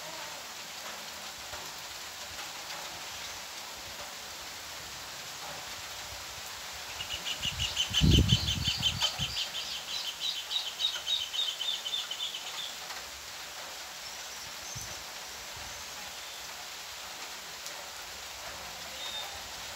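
Steady rain falling on a dirt yard and vegetation. About seven seconds in, a bird calls a rapid series of high, repeated notes for some six seconds. A low thump comes near the start of the call.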